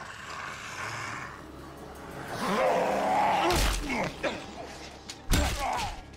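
A walker's guttural growl, then heavy blunt blows thudding into it, two of them, the second the loudest, near the end.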